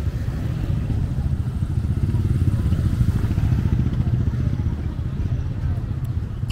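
Small motorcycle engine of a motorized tricycle running close by as it passes, a rapid low putter, loudest between about two and three seconds in and easing off after.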